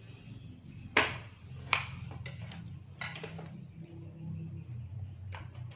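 Kitchen knife cutting through a ripe papaya and knocking on the cutting board beneath: two sharp knocks about a second apart, then a few fainter taps, over a low steady hum.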